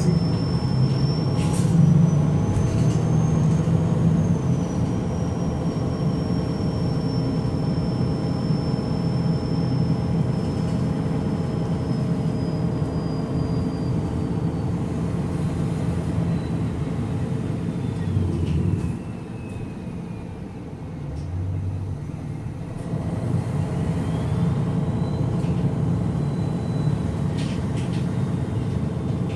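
MAN NG313 articulated bus's D2866 LUH turbocharged horizontal inline-six diesel idling at a stop, with the high whine of its hydraulic cooling fan. The whine rises over the first few seconds and then slowly sinks. About 18 seconds in the fan winds down and the sound drops, and a few seconds later it spins back up.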